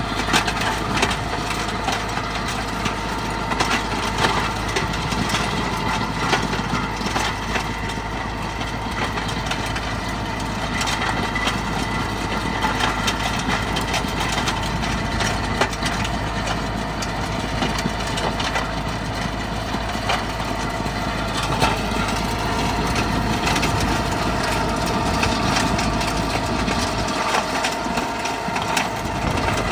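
Tractor-powered stone crusher running: a steady tractor engine under load with frequent irregular sharp cracks and knocks of stones being broken up in the crusher. The low rumble drops away near the end.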